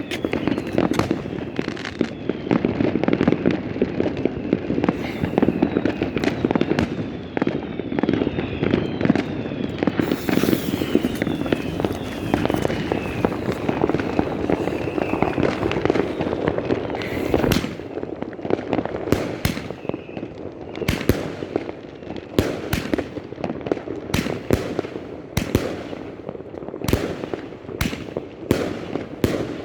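Fireworks going off. For roughly the first half there is a dense crackling with falling whistles, then from about two-thirds in come single sharp bangs every second or so.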